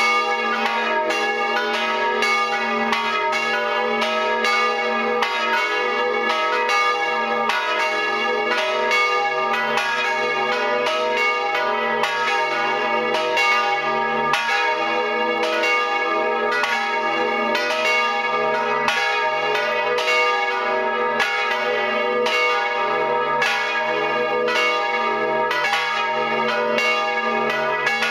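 Full peal of three swinging church bells, tuned to D♯, G♯ and B and cast in 1508, 1925 and 1952. Their clappers strike in a steady, overlapping rhythm and the tones ring on between strikes, heard close up in the belfry.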